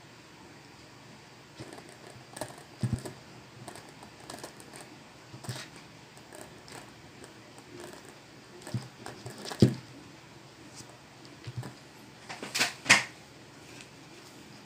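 Hard plastic PVC pipe fittings being handled and pushed together by hand: scattered light clicks and knocks, with a few louder knocks in the second half.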